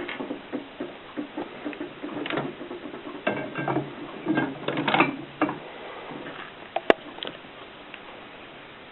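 Mignon 4 index typewriter being worked, its mechanism giving a run of irregular clicks and rattles for about five seconds. Two sharp clicks follow about seven seconds in.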